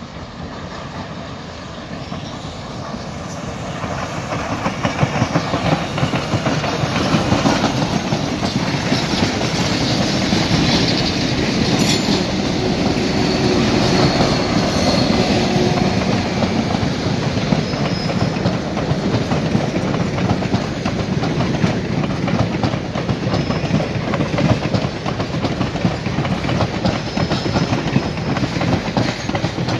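Reading & Northern 425, a 4-6-2 Pacific steam locomotive, grows louder as it approaches and passes. Its train of passenger coaches then rolls by, the wheels clattering steadily over the rails.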